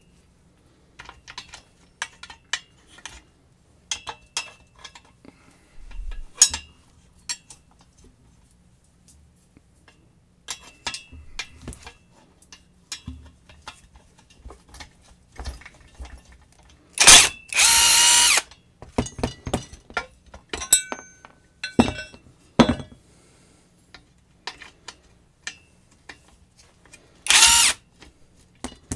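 Tacklife 20-volt cordless half-inch impact wrench running in two short bursts, one of about a second and a half roughly two-thirds of the way in and a shorter one near the end. Scattered clinks and taps of metal parts and tools being handled come between them.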